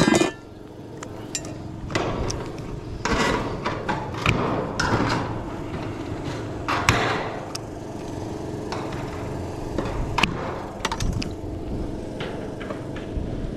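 Standing seam steel roofing panel and hand tools being handled on a workbench: irregular clanks, knocks and scrapes of thin sheet metal and tools set down, with tin snips cutting into the panel end near the end.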